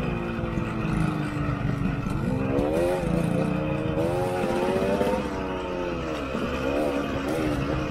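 KTM 125 EXC's two-stroke single-cylinder engine running under way, revving up and down with the throttle: the pitch climbs a couple of seconds in, drops briefly around six seconds and rises again.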